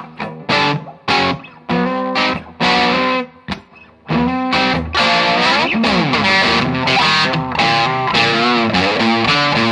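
2016 Fender Jaguar Classic Player electric guitar played through a Fender Blues Deluxe tube amp: short, choppy chord stabs with gaps between them, then about four seconds in a continuous line of sustained notes that bend up and down in pitch.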